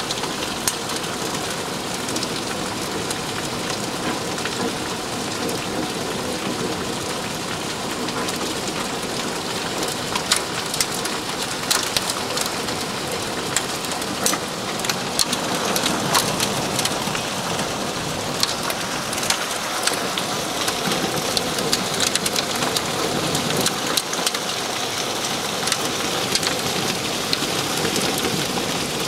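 Heavy rain mixed with hail pelting down in a dense, steady hiss, with many scattered sharp ticks of hailstones striking hard surfaces.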